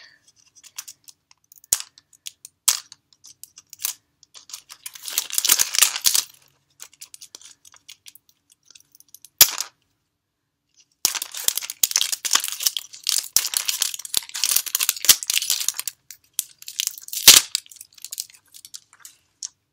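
Plastic outer wrapping on a Toy Mini Brands capsule ball being peeled and torn off by hand: two long stretches of crinkling, with sharp snaps and clicks between them.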